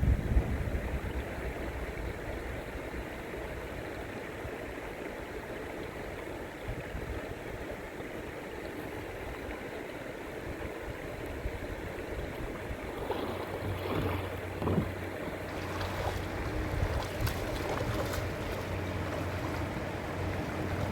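River water flowing steadily, with a few sharp knocks and clatters in the second half.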